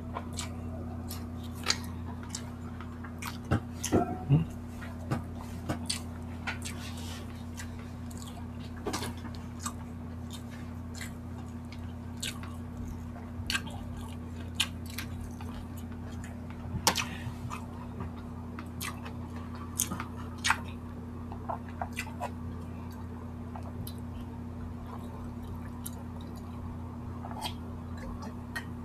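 Close-miked chewing and wet mouth sounds of people eating saucy barbecue chicken with their hands: scattered lip smacks and clicks over a steady low hum.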